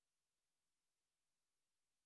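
Near silence: only a faint, even hiss with no other sound.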